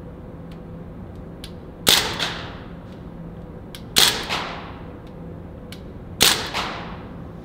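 M4-style air rifle firing three single shots about two seconds apart, each a sharp crack with a short echo.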